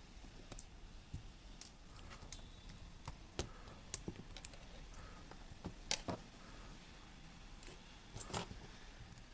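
Irregular light clicks and taps of hands and small tools working on a radio-cassette recorder, with a few sharper knocks about three and a half, six and eight seconds in.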